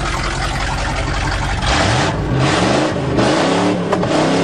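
1977 GMC truck's engine pulling under way, its pitch climbing in a series of short rises from about halfway through, over a steady rushing noise.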